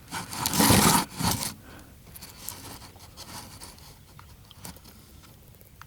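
Scraping and rubbing handling noise, loudest for about a second near the start, then fading to faint scratches and light ticks, as the rifle and scope are handled and adjusted.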